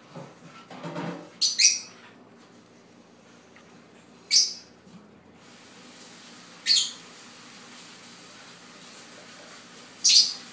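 Blue masked lovebird giving short, sharp, high-pitched calls: a quick pair about a second and a half in, then single calls every two to three seconds.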